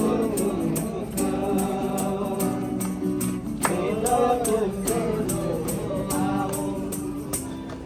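A group of voices singing a Hindi gospel hymn in chorus, over a steady beat of about three to four sharp percussive strikes a second. The music fades slightly near the end.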